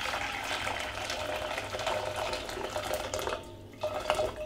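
Freshly boiled water pouring from a stainless steel electric kettle into a steel saucepan, the stream easing off and stopping about three seconds in.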